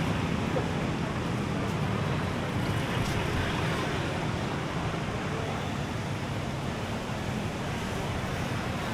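Steady beachfront ambience: an even rushing noise of surf and wind mixed with road traffic, with no distinct events.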